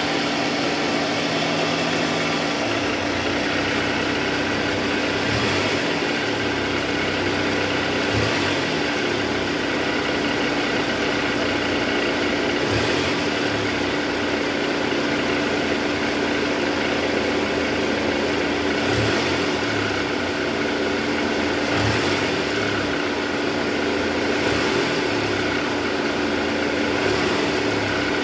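Toyota 2AZ-FE four-cylinder engine idling steadily with a smooth, even hum, its balancer shaft freshly replaced. It runs with a normal engine sound, free of the rough noise from the oil pan area that a failing balancer shaft gives.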